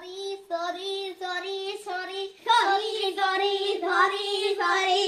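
A child singing a chant on one nearly steady note, in short repeated syllables, louder and fuller from about halfway through.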